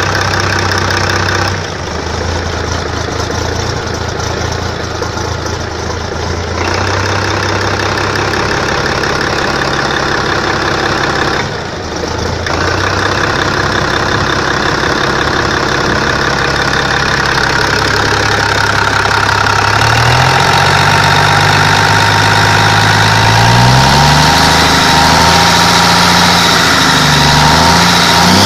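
Cummins KTTA19-C 19-litre inline-six twin-turbo diesel engine, out of its machine and being test-run after repair, idling steadily. Over the last several seconds it is revved up and down several times and gets louder.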